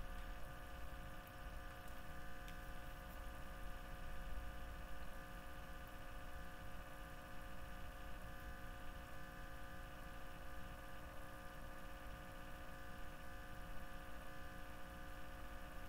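Room tone: a steady low hum with several faint, unchanging tones over it.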